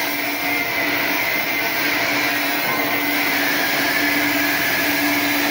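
Steady whir and hiss of a running motor-driven machine, with a low hum that breaks off and comes back several times.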